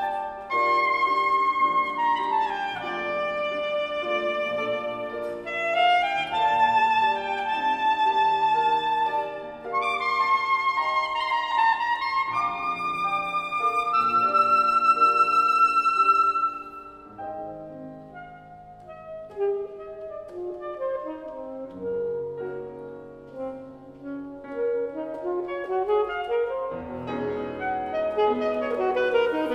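Alto saxophone with piano accompaniment: the saxophone plays a busy melodic line ending in a long held high note. About halfway through it stops, and the piano goes on alone, more quietly, building with a rising passage near the end.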